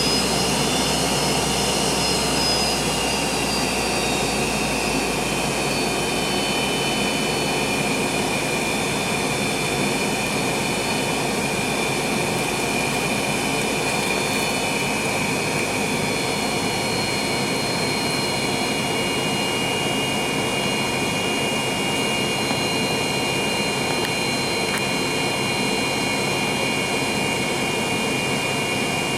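Whine and rumble of the MD-88's rear-mounted Pratt & Whitney JT8D turbofans, heard inside the cabin and running at a steady low power. The high whine drifts slightly lower in pitch over the first few seconds, then holds steady.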